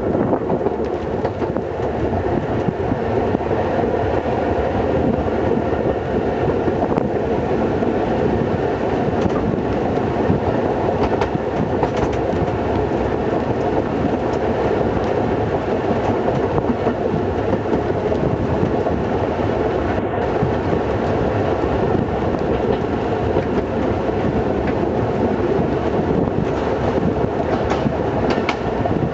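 Metre-gauge museum train hauled by the V1 diesel locomotive, heard from the open end platform of a coach: steady running noise of the train, with wheels clicking over the rail joints.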